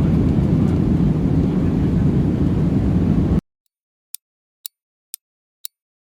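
Airliner cabin noise, a loud steady low rumble, cuts off abruptly a little over three seconds in. Short, sharp ticks follow, two a second, like a clock.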